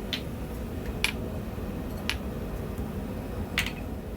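Four short, sharp metal-on-metal knocks spaced about a second apart as an old improvised blacksmith jig is tried out, over a steady low hum.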